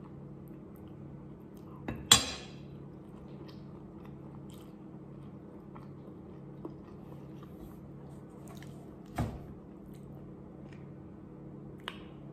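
Close-up eating sounds: soft chewing of noodles, with a metal utensil clinking sharply on a ceramic plate about two seconds in. Another clink comes about nine seconds in and a lighter tap near the end.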